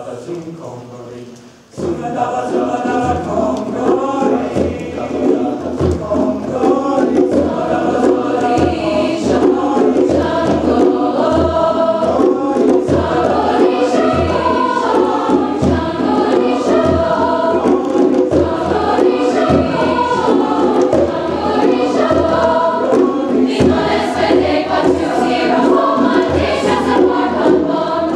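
Large mixed choir singing in full voice with conga drums beating underneath. The sound dips briefly, then the full choir and drums come in about two seconds in.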